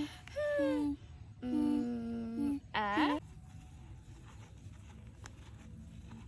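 A voice making a few short humming, pitched notes, the last one wavering, about three seconds in; after that only faint background noise.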